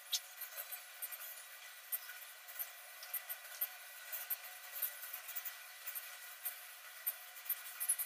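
Cockatiels preening each other on a perch: faint, rapid high-pitched scratching and clicking of beaks in feathers, with a sharper click just after the start.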